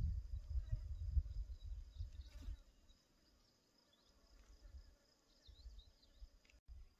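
Outdoor ambience: a low, gusty rumble on the microphone, loudest in the first couple of seconds and returning near the end. Under it runs a faint steady high-pitched insect drone, with a few faint chirps near the end.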